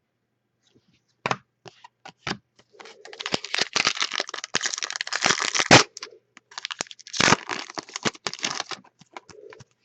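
Trading-card pack wrapper being torn open and crinkled, a dense crackle lasting about three seconds, with sharp clicks and snaps of cards being handled before and after.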